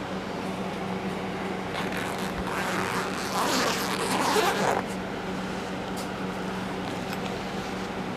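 A rough scraping, rustling sound for about three seconds that stops abruptly, as the pistol's packaging is opened. A steady low hum runs underneath.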